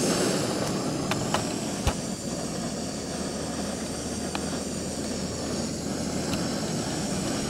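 Snow Peak GigaPower canister stove burning at full flame under a small pot of water: a steady rushing burner noise. A few light clicks and a knock about two seconds in.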